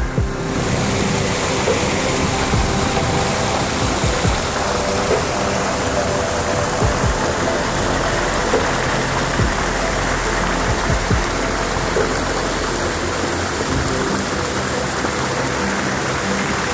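Water rushing and splashing through a narrow gap in a concrete check dam: a steady, loud rush of falling river water, with background music underneath.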